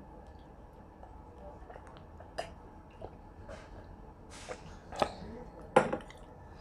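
Close-up mouth sounds of a person eating: quiet chewing with a few sharp smacks or clicks, the loudest just before the end.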